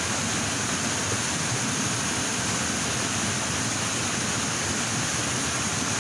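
Steady rushing of flowing water over rocks, a continuous even hiss with no breaks.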